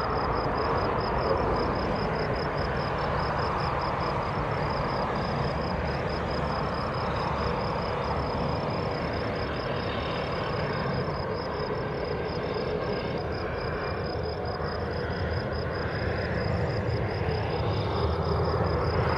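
Airliner jet engines heard from the ground: a steady rumble and rush, from an Airbus A350-900 in flight and then an Airbus A330neo on its take-off. A whine climbs in pitch near the end.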